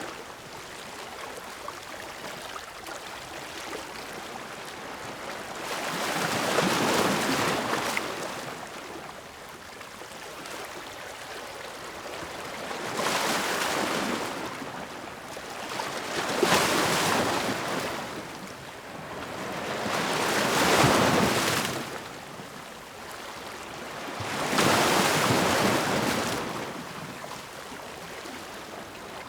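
Ocean surf: waves breaking and washing up the shore, a rushing hiss that swells and falls back about five times, roughly every four seconds.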